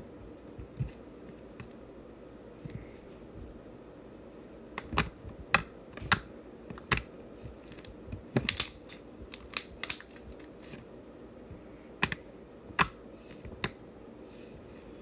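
Glossy, stretchy homemade slime being kneaded and pressed by hand, giving off irregular sharp clicks and pops as air trapped in it bursts. The clicks are sparse at first and come thick and fast from about five seconds in.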